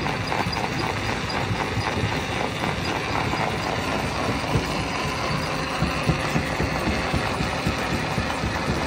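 Rock crusher and its engine running steadily, with irregular knocks and clatter of stone, more frequent in the second half.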